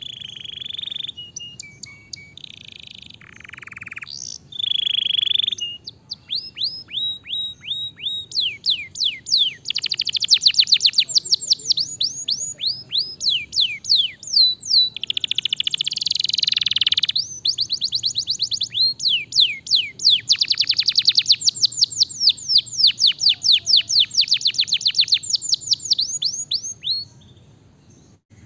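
Canary singing: a few held whistled notes and short phrases, then long fast trills of repeated downward-sweeping notes with brief breaks, ending shortly before the end.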